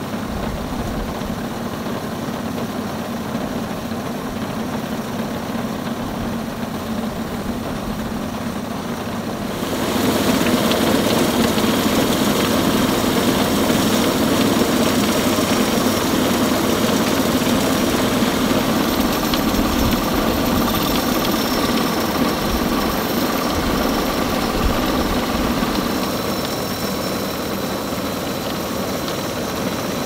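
Homemade bandsaw sawmill running steadily, its engine and band blade cutting through a log. About ten seconds in the sound grows louder and rougher as the cut takes hold, easing off a little a few seconds before the end.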